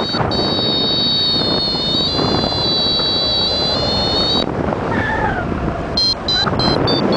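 Strong wind rushing over the microphone in flight, with a flight variometer's electronic tone: a steady high tone that steps in pitch for about four seconds, then, from about six seconds in, quick beeps about three a second, the variometer's signal of climbing air.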